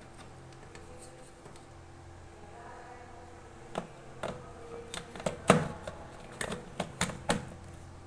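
Clicks and knocks of a drip coffee maker and its power plug being handled as it is set up and plugged in, starting about four seconds in and loudest near the middle, over a low steady hum.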